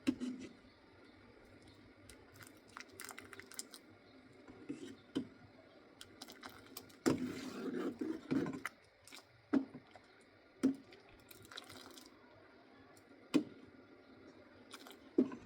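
Scattered light clicks and knocks of objects being handled, with a denser rustling, clattering stretch about seven to nine seconds in.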